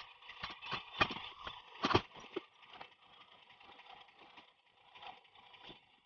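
Metal rear paddock stand knocking and clanking as it is pulled out from under a sport motorcycle's rear wheel and set aside. The loudest knocks come about one and two seconds in, followed by lighter scattered knocks.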